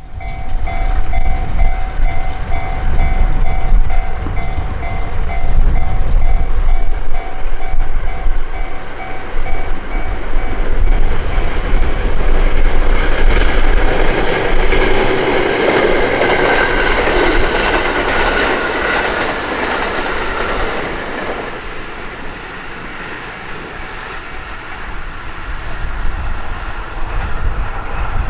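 A Japanese level-crossing warning bell rings in a steady repeating two-tone pattern while a train approaches and passes over the crossing. The train's noise swells to its loudest about halfway through, with wheel clatter and a falling whine, then eases off but keeps going.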